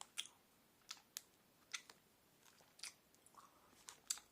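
Chewing of Sour Patch Kids sour gummy sweets, faint, with a handful of short, soft clicks spread through an otherwise near-silent stretch.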